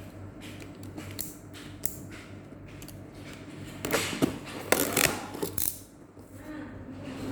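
Laptop box and packaging being handled: scattered small clicks and taps, with a louder spell of rustling and knocks about four to five and a half seconds in, over a faint steady hum.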